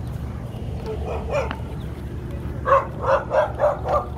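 A dog barking: one bark about a second in, then a quick run of about five barks near the end.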